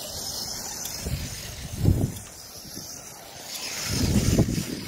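Radio-controlled cars running in sand, with two louder low rumbling surges, about two seconds in and again near the end.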